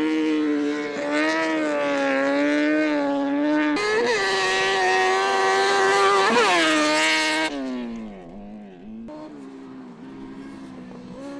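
Kartcross buggy's high-revving motorcycle engine at racing speed, its pitch rising and falling with throttle and gear changes, with sharp dips about four and six and a half seconds in. About seven and a half seconds in it turns suddenly quieter, the engine still revving up and down.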